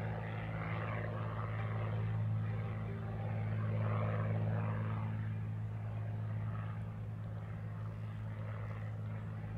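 Cessna 182RG Skylane's six-cylinder Lycoming piston engine and propeller droning steadily as the plane climbs out after takeoff, swelling slightly midway and fading a little near the end.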